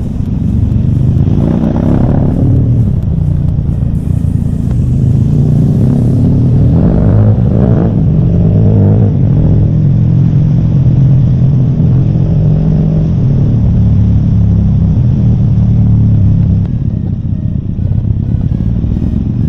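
A motor vehicle running steadily with a low, constant engine hum, dipping slightly in level about three quarters of the way through.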